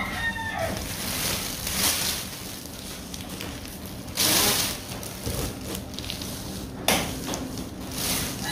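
A rooster's crow trails off in the first half-second. Then a thin plastic bag crinkles and rustles in short bursts as water spinach stalks are handled, loudest about four seconds in, with one sharp crack near seven seconds.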